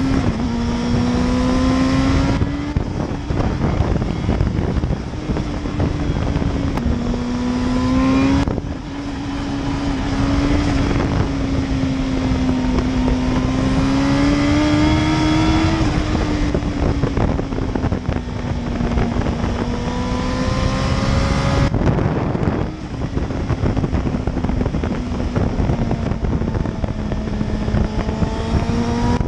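Turbocharged Suzuki GSX-R1000 K5 inline-four engine pulling at a calm, moderate pace, its note slowly rising and falling over wind rush. It breaks off sharply about 2, 8 and 22 seconds in, where the throttle is shut and the turbo flutters.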